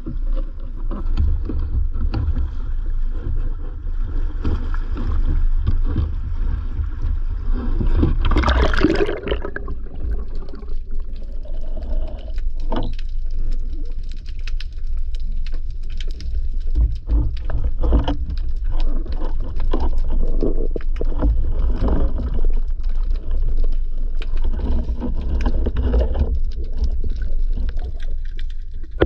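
Action camera in its waterproof housing carried into the sea by a spearfisher: a steady muffled rumble, a brief rush of noise about nine seconds in as he goes into the water. After that, underwater water movement with scattered clicks and knocks against the housing.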